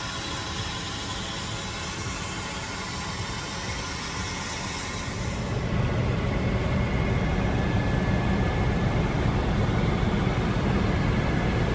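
A steady engine rumble with fine low pulsing. It gets somewhat louder about halfway through, as the higher hiss drops away.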